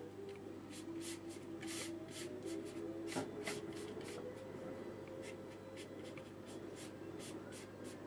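Wide flat brush with fairly dry paint swept quickly across watercolour paper, a soft scratchy brushing in repeated strokes about two a second. This is the quick-sweep dry-brush method for painting water.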